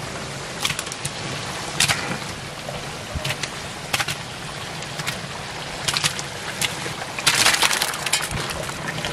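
Raw chicken pieces dropping into a large pot of hot, oily biryani masala, sizzling and crackling, with a louder burst of spattering about seven seconds in as more pieces go in.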